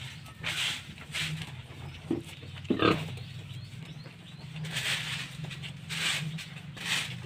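Pigs grunting in repeated short breathy bursts, with a couple of short squeals a little over two seconds in, over a steady low hum.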